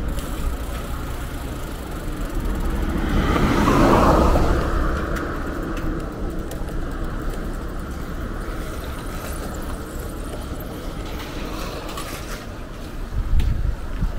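Road traffic heard from a street, with one vehicle passing about four seconds in, rising and then fading, over a steady low rumble.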